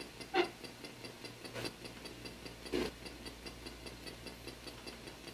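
Spirit box sweeping through radio stations: a rapid, even clicking of about four or five ticks a second over faint static hiss, with three brief snatches of radio sound, which the investigators hear as the words "grave", "buried", "here".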